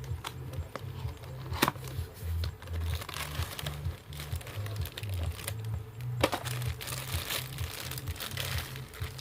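Packaging crinkling and rustling as something is unboxed, with sharp crackles about one and a half seconds in and again about six seconds in, over background music with a steady bass line.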